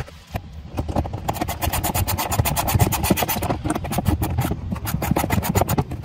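A ratchet wrench clicking rapidly and steadily for several seconds, about ten clicks a second, as a fastener on the plastic under-cover is worked, over a low steady rumble.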